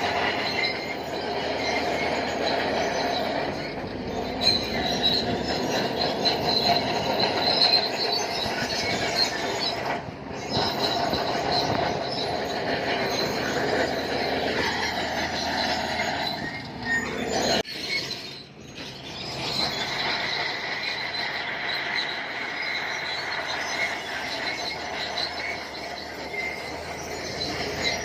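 Crawler bulldozer working, its steel tracks giving a steady high-pitched squeal over the running machine, dipping briefly twice.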